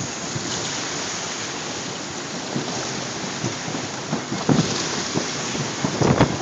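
Heavy rain and strong wind in a storm over choppy open water: a steady rushing noise, with wind gusts buffeting the microphone about four and a half and six seconds in.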